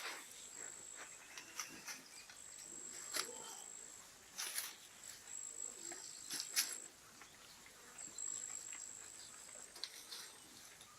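An insect trilling on one high, steady note in spells of about a second and a half, with short gaps between. Scattered faint clicks and knocks are heard in between.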